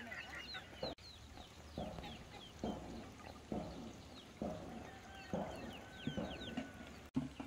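Chickens on a farm: chicks peeping in short falling chirps, with short low clucks about once a second.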